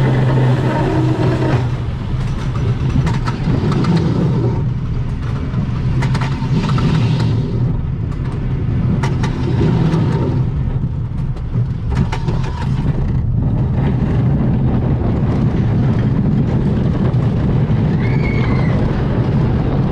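Pax family roller coaster train rolling out of the station and climbing the lift hill: a steady low rumble with scattered sharp clacks from the track and train. The rumble carries on steadily as the train nears the top and moves along the track.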